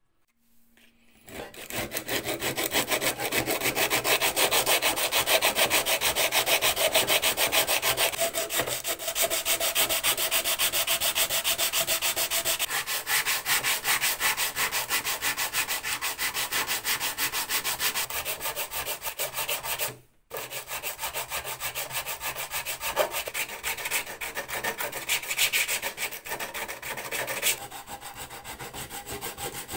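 Sandpaper on a hand-held wooden block rubbed rapidly back and forth over dried filler on a metal post box, a steady fast scratching. It stops for a moment about two-thirds of the way through, then carries on, lighter near the end.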